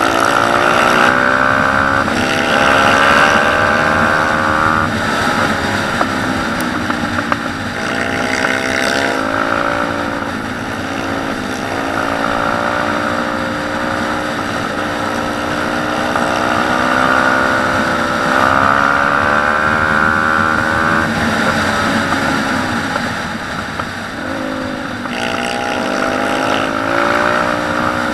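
Pit bike's single-cylinder four-stroke engine under hard acceleration, its pitch climbing through each gear and dropping at every shift, several times over, with wind rushing over the helmet-mounted microphone.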